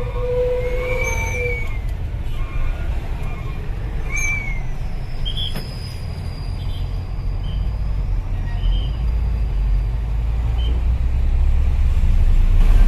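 Heavy dump truck's diesel engine running with a steady low rumble, heard from on board, growing louder near the end. A held high tone fades out in the first second or two, and a few short high squeaks come in the first half.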